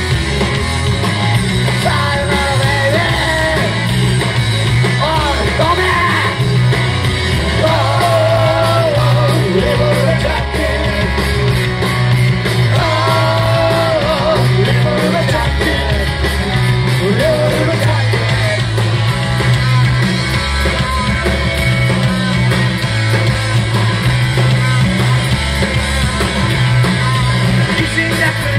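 Live rock band playing loud: electric guitar, bass, drums and a lead singer, with the bass line moving in steady blocks under the sung melody.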